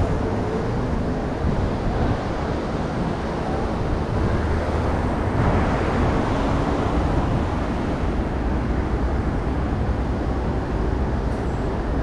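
Steady road traffic noise from cars on an avenue, swelling a little about halfway through.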